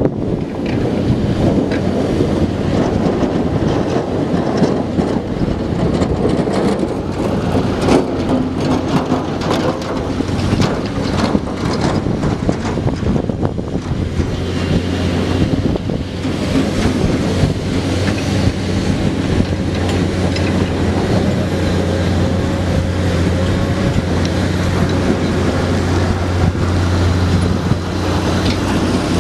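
Komatsu PC210 hydraulic excavator's diesel engine running with a steady low hum, with a stretch of rattling and clattering in the first half as it loads gravel. Wind buffets the microphone.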